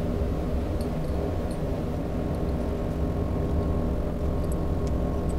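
Steady low background hum with a faint steady tone above it, and a few faint light clicks.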